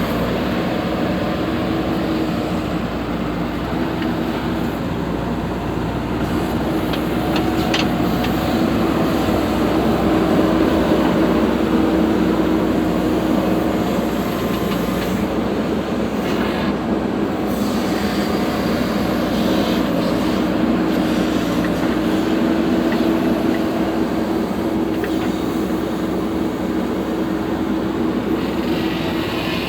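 JCB backhoe loader's diesel engine running steadily with a constant hum while digging, with a few faint clicks and knocks over it.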